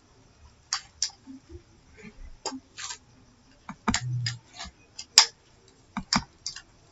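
Computer mouse clicking: about a dozen short, sharp clicks at uneven intervals while a web page is scrolled. A brief low hum comes about four seconds in.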